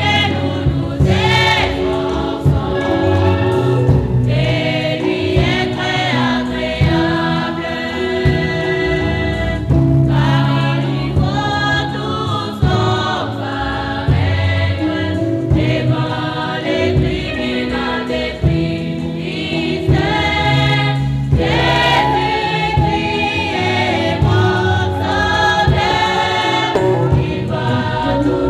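Choir singing a gospel worship song over a steady low musical accompaniment.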